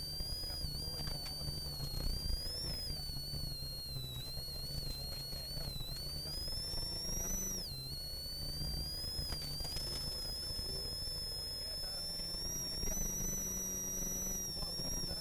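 Ford Sierra RS Cosworth's turbocharged four-cylinder rally engine running hard, heard inside the cabin, with a high whine that rises and falls with speed. The whine and engine dip sharply about eight seconds in as the car slows, then climb again.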